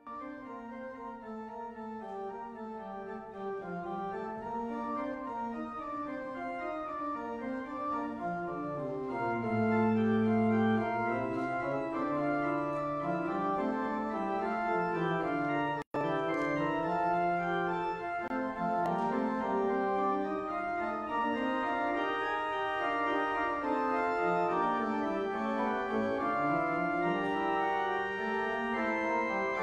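Church organ playing the postlude: sustained chords over a slowly moving bass line. The sound cuts out for a split second about halfway through.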